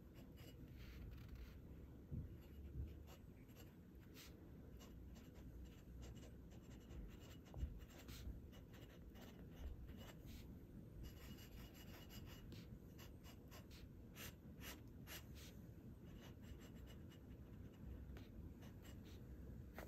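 Faint scratching of a glass dip pen's nib across thin Tomoe River paper as words, loops and lines are written in short strokes, with a few soft low knocks.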